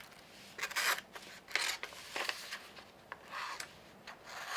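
Stainless steel folding knife blade pushed through a sheet of computer paper, giving several short, rough rasping strokes of paper. The cut is not clean: the blade drags and has to be forced through.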